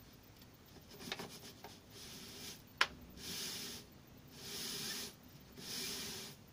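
A hand rubbing and sliding over the clear plastic lid of a food dehydrator. There is a sharp click near the middle, then several scraping rubs, each under a second long and about a second apart.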